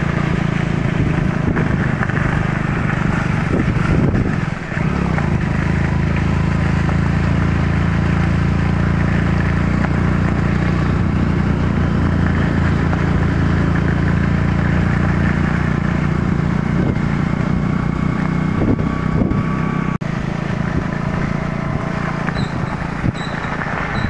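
Motorcycle engine running steadily at cruising speed, heard from the rider's seat, with a brief dip in level about twenty seconds in.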